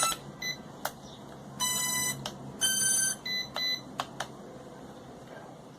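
Electronic beep tones: about four short beeps of different pitches, with several sharp clicks between them.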